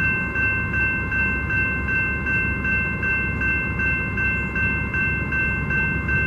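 Railroad crossing bell ringing steadily at nearly three strikes a second, with a low rumble underneath.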